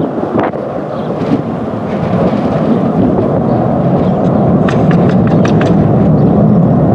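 Jet aircraft engines rumbling as the jet approaches at low altitude, growing steadily louder.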